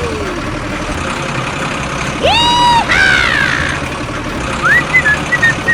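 Vehicle engine running steadily at idle. High-pitched cartoon-style voice cries glide up and down over it, once about two seconds in and again near the end.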